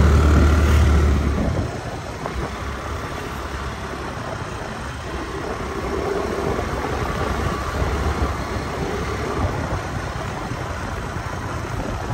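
Motor scooter running while being ridden slowly. A loud low rumble drops away about a second and a half in, leaving a steadier, quieter engine and road noise.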